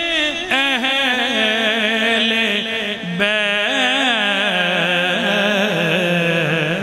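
A man's solo voice chanting an Urdu devotional kalam (manqabat) into a microphone, drawing words out into long, wavering melodic phrases; a new phrase starts about three seconds in and ends on a long low held note.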